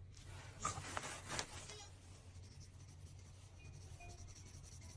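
A small ball bearing from a seawater-soaked spinning reel turned by hand, giving a rasping, scratchy noise for about a second and a half before it fades to faint handling. Seawater corrosion has left the soaked bearings noisy.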